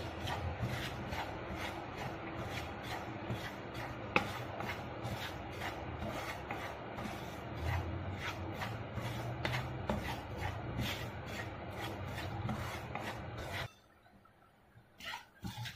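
Wooden spatula scraping and stirring dry semolina and chana dal around a nonstick frying pan in quick, rough, repeated strokes while the semolina is dry-roasted, with one sharper tap about four seconds in. The stirring stops about two seconds before the end.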